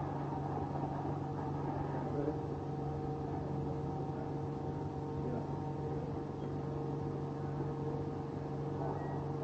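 A steady low drone made of several held tones, a background sound bed.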